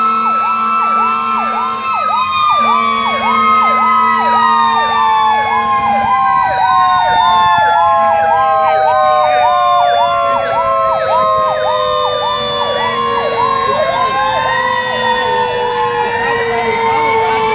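Fire engine sirens sounding together. An electronic siren yelps about twice a second, while siren wails glide slowly down in pitch over many seconds. A low steady horn tone is held through the first six seconds.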